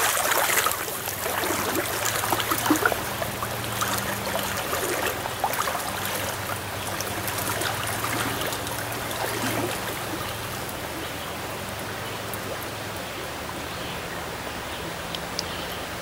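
Shallow stream rushing over riffles. Over the first few seconds, sloshing splashes from legs in waders wading through the water, fading as the wader moves off.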